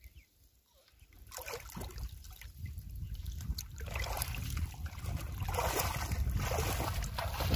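Shallow water sloshing and splashing as someone wades and crawls through it, pushing a metal basin. It is quiet at first and grows louder after about a second.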